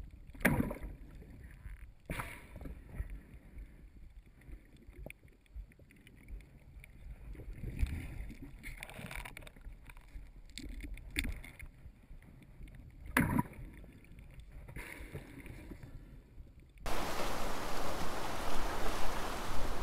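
Muffled underwater sound of water moving around an action camera on a snorkel dive, with a few dull knocks, the loudest a little after 13 seconds. About 17 seconds in it cuts abruptly to the open-air wash of surf breaking on rocks.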